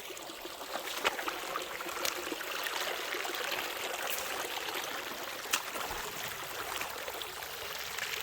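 Shallow creek water running over rocks: a steady rushing, with a few short clicks scattered through it.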